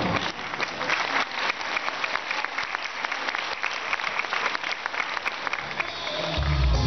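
Audience applauding in a hall, a dense clapping that begins as the dance music stops. Near the end, loud music with a strong bass starts up.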